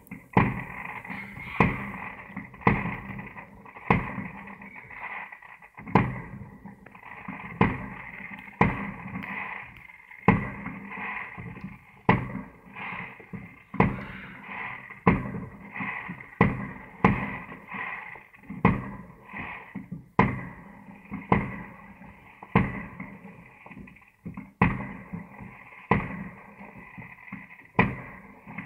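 Aerial fireworks going off in a steady series, a sharp bang about once a second, each trailing off in a short echo.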